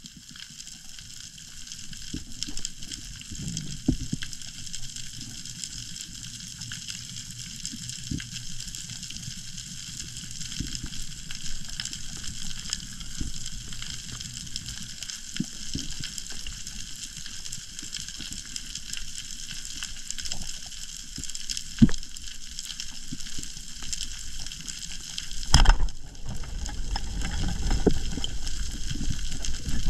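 Underwater sound through a diver's camera: a steady high hiss with muffled water movement and a few faint clicks. A sharp crack a few seconds before the end comes as a speargun is fired into a graphic tuskfish. A low churning rumble follows as the speared fish struggles in the silt.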